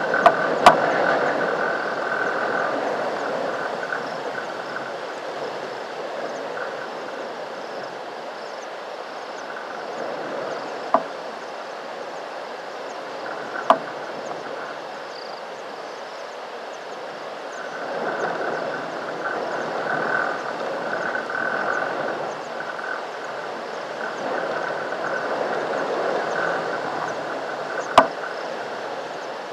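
A chorus of frogs calling in waves that swell and fade, with a few sharp clicks scattered through it.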